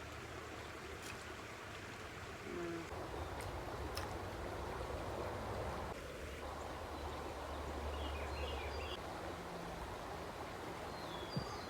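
Steady wash of water outdoors, with a few faint high chirps about two-thirds of the way through.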